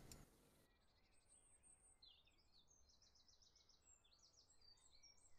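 Near silence, with faint high bird chirps in the second half.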